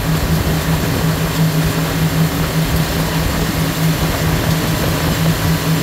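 Motorboat engine running steadily under way, a constant low drone, over a rushing noise of water and wind.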